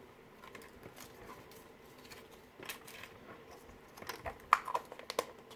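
Small plastic toys and wrappers being handled: quiet faint rustling, then a quick run of light clicks and crinkles in the last second and a half.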